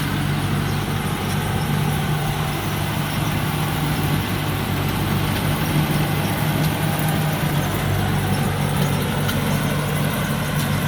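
Rice combine harvester working in the field, its 260 hp Hino J08C diesel engine running at a steady hum along with the machine's steady mechanical noise.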